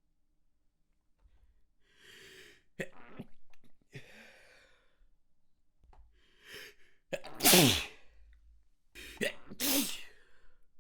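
A person having a sneeze fit: about three sneezes, each after a quick in-breath. The loudest comes about two-thirds of the way through, voiced and falling in pitch.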